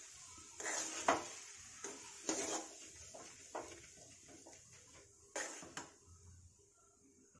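A steel spoon scraping and tapping against a metal kadai as thick, cooked semolina halwa is stirred: a run of short, irregular scrapes and knocks that grow fainter toward the end.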